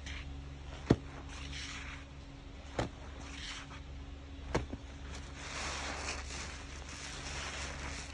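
Thick soap lather being squeezed and worked with a sponge by a rubber-gloved hand: wet squishing and fine crackling of foam, with three sharp pops about one, three and four and a half seconds in. A steady low hum runs underneath.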